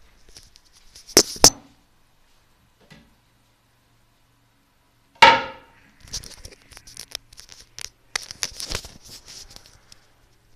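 Handling noise as a phone camera is carried and moved about: two sharp clicks about a second in, a brief falling squeak around five seconds, then a run of clicks and rustles.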